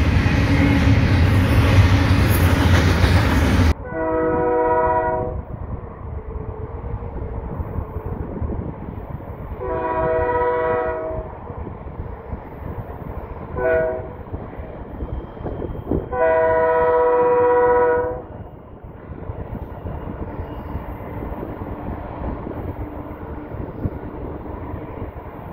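A passing double-stack container freight train rumbles loudly for the first few seconds, then stops abruptly. After that, an approaching diesel freight locomotive's air horn blows several notes at once in a long, long, short, long sequence, the standard warning for a grade crossing, over a steady low rumble.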